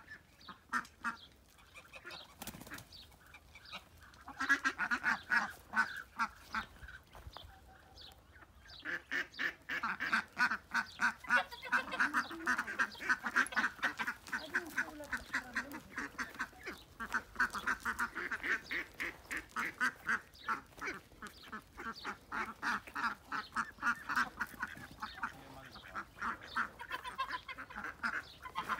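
A flock of farmyard ducks and geese calling: scattered quacks at first, then a steady chatter of rapid, overlapping calls from about nine seconds in.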